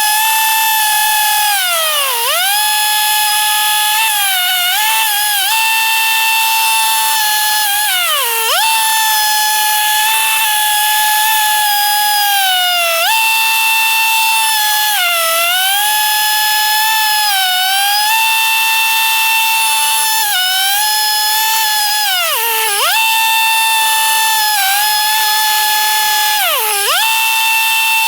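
Stihl TS 420 cut-off saw running at high revs with a 14-inch blade, cutting through the steel shell of a water heater. Its high whine sags in pitch and climbs back again and again as the blade bogs into the metal.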